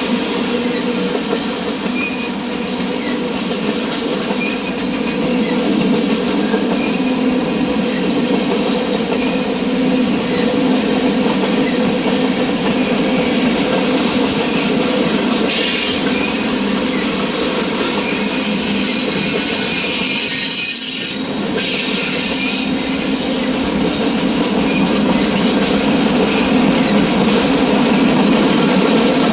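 Freight train cars rolling steadily past, wheels rumbling and clattering on the rails, with a thin high-pitched wheel squeal through the middle stretch.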